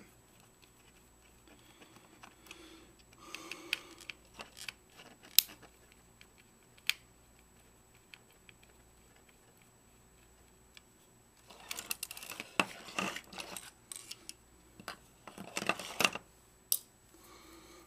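A Vivitar 2800 flash being pulled apart by hand: its plastic housing and circuit boards give scattered clicks, cracks and rattles, with a couple of sharp snaps and two busier spells of clattering in the second half.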